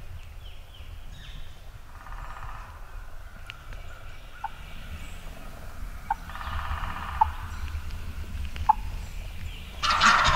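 Wild turkey gobblers gobbling three times: a faint gobble about two seconds in, a stronger one around six seconds, and the loudest near the end. A few short sharp notes fall between the gobbles.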